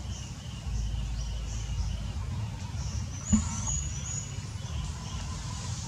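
Outdoor ambience of repeated short, high bird chirps over a steady low rumble, with one brief sharp chirp and click about three seconds in, the loudest sound.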